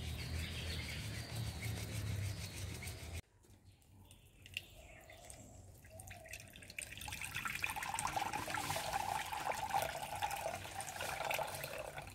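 Water draining from a cracked coconut, trickling and splashing into a clay bowl. It builds up a few seconds after an abrupt cut from steady outdoor background sound.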